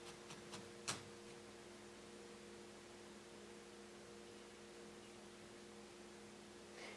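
Near silence: a faint steady electrical hum, with one small click about a second in.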